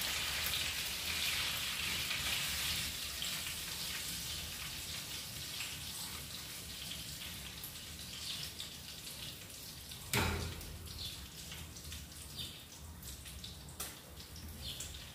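Salmon fillet sizzling and crackling in hot oil in a frying pan, the sizzle easing off gradually. A sharp knock about ten seconds in, and a lighter one near the end.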